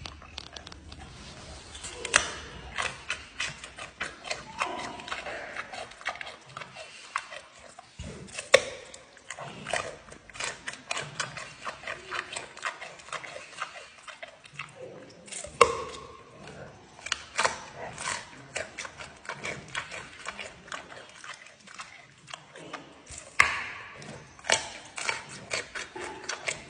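Panda biting and chewing a raw carrot: a steady run of irregular crisp crunches, with a few louder snapping bites spread through.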